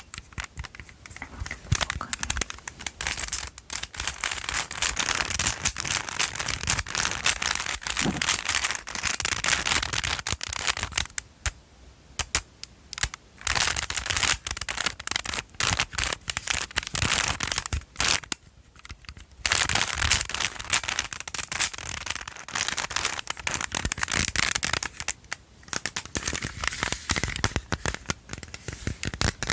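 Close-miked ASMR object sounds: a dense, fast run of crinkling and crackling clicks from an object being handled and tapped, with a few brief pauses.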